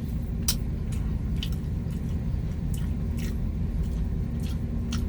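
Close-up chewing and biting of fried boneless chicken, with several short, crisp crunches, over a steady low rumble of the vehicle's engine.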